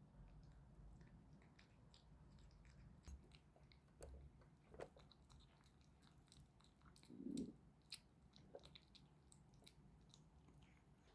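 A kitten chewing soft homemade food: faint, irregular small clicks and mouth sounds, with one louder brief sound about seven seconds in.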